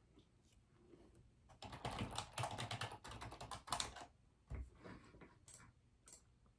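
Typing on a computer keyboard: a fast run of key clicks for about two seconds, then scattered single keystrokes.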